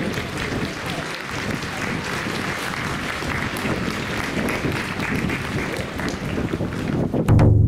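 Crowd of spectators applauding steadily, a dense patter of many hands clapping with voices mixed in. Near the end a sudden loud, low thud with a short ringing hum cuts across it.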